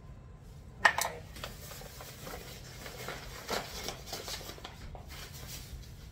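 Kitchen handling noise: a plastic measuring cup knocks sharply against a stainless steel mixing bowl about a second in, followed by light rustling and small clatters of utensils being set down.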